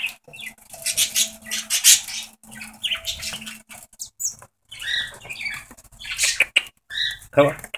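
Budgerigars (pet parakeets) chirping and chattering in a quick run of short, shrill calls.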